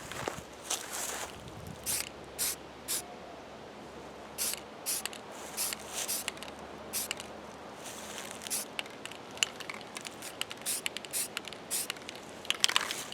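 Aerosol spray paint can hissing in many short bursts, about two a second, with a brief pause near the start, as khaki camouflage paint is sprayed on.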